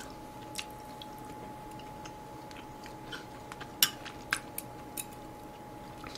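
Quiet chewing, with a few light clicks of metal chopsticks against a plate, the clearest about four seconds in. A faint steady high tone hums underneath throughout.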